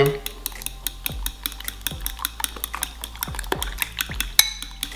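Raw eggs and flour being beaten by hand in a bowl: a utensil clicks quickly and irregularly against the bowl, with one louder knock near the end.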